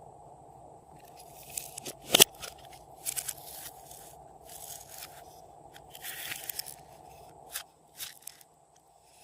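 Glossy slime being kneaded and stretched by hand, giving irregular crackling pops and clicks, the loudest about two seconds in. A faint steady hum lies underneath and stops near the end.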